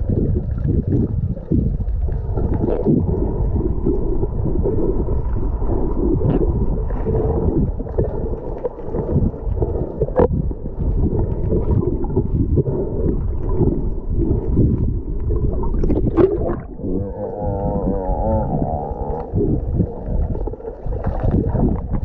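Underwater sound as heard through a submerged camera: a dense, muffled rumble with scattered crackles and knocks from moving water and the swimmer's motion. About seventeen seconds in, a wavering, warbling tone lasts for about two seconds.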